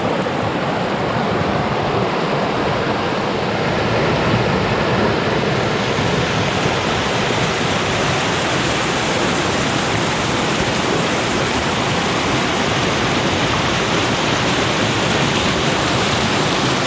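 Flooded creek rushing hard: a loud, steady roar of fast-moving floodwater, the hiss growing somewhat brighter about five seconds in.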